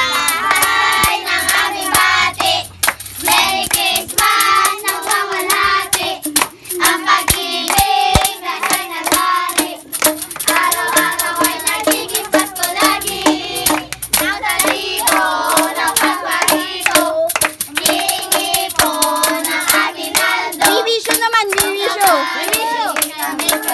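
A group of children singing a Christmas carol together, with a tambourine and hand claps keeping the beat.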